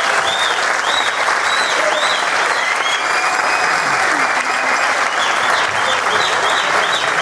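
Auditorium full of people applauding, dense steady clapping from the audience and the cast on stage, with short high squeaks recurring about twice a second over it.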